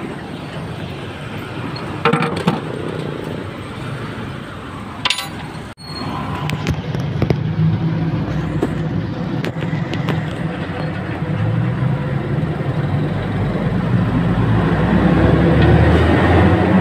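A vehicle's engine rumbling, growing louder through the second half. A few sharp clicks and clinks come in the first few seconds.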